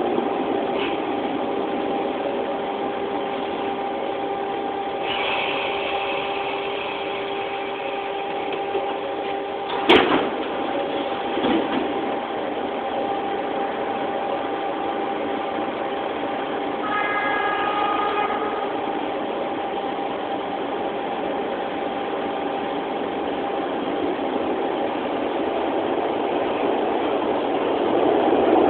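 Steady hum and drone inside a Broad Street Line subway car standing at an underground station. A sharp bang comes about ten seconds in, a lighter knock follows, and a short pitched tone sounds at around seventeen seconds.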